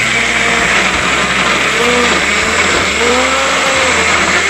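Electric countertop blender running, its motor whirring steadily as it churns a white liquid, with a few slight swells and dips in pitch as the contents move.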